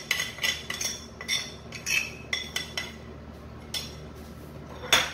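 Light, irregular clinking and tapping of a spice jar and spoon against a glass mixing bowl as chilli flakes are shaken in. Several quick taps a second at first, thinning out, with one louder clink near the end.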